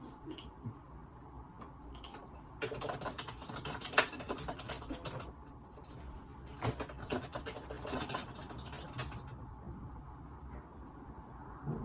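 Computer keyboard typing, picked up by a phone microphone: two runs of quick key clicks, one starting between two and three seconds in and another about seven seconds in, with a few scattered keystrokes between and after.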